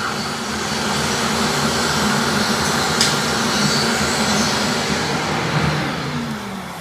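Table saw running steadily, then switched off, its motor and blade winding down with a falling pitch near the end.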